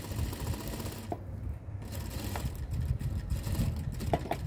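Anysew industrial sewing machine stitching a shirt collar band, its motor humming steadily and the needle running fast for about a second before easing off, with a few light clicks.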